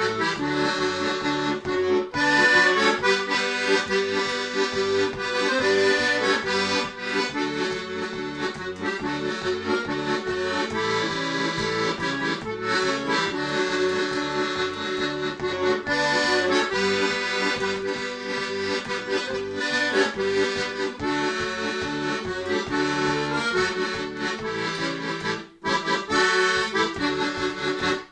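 Piano accordion playing a tune solo over a rhythmic bass accompaniment. Near the end the music breaks off sharply for a moment, then plays a last short phrase and stops.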